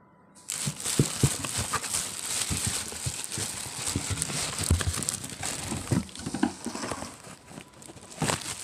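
Plastic wrap crinkling, with cardboard rubbing and knocking, as a plastic-wrapped canister vacuum cleaner is lifted out of its box. It starts abruptly about half a second in, with sharp knocks among the rustle.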